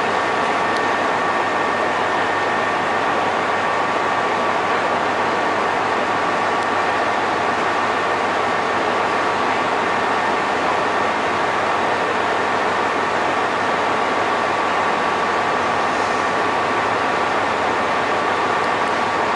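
Steady hiss and hum of a stationary electric train's onboard equipment at a station platform, with two faint high steady tones running through it.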